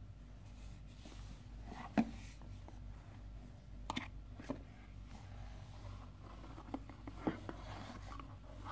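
Cardboard smartphone box being handled and its inner tray slid out of the sleeve: scattered light taps and knocks with soft scraping of cardboard, the sharpest tap about two seconds in.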